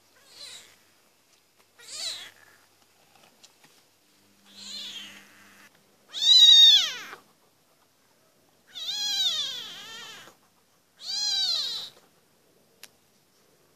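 Very young kitten mewing: a series of high, thin mews, each rising and then falling in pitch, faint at first and loudest from about six seconds in.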